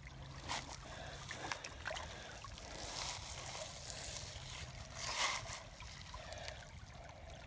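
Shallow creek water trickling over rocks, with a few brief louder noises, the loudest about five seconds in.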